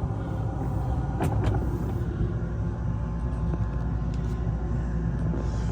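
Boat's cabin air conditioning blowing, a steady low rumble, with a couple of short knocks about a second in.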